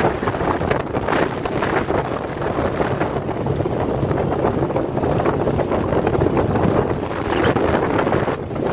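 Wind buffeting the microphone on a moving speedboat, with the boat's engine humming steadily underneath and the rush of water.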